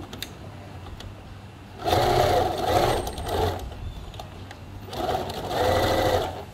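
Bernina sewing machine stitching a pinned seam through shirt fabric, in two runs: one about two seconds in and another about five seconds in, with a short pause between.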